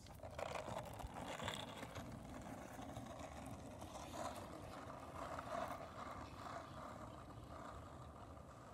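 Skateboard wheels rolling on asphalt, a steady rough rumble that grows fainter as the board moves away.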